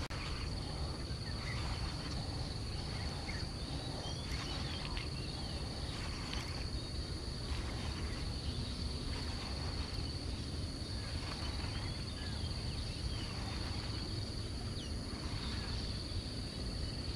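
Steady high-pitched insect drone over a constant low rumble, with a few faint short chirps.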